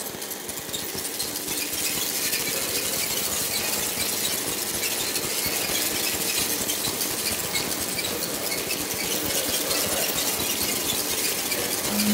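Electronic noise music from an audio-visual installation's stereo soundtrack: a dense, steady hiss-heavy texture full of fast crackling, glitchy clicks. A loud low steady tone comes in at the very end.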